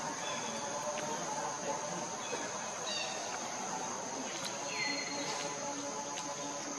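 Outdoor insect drone, a steady high-pitched buzz, with a few short bird chirps, one a falling call about five seconds in.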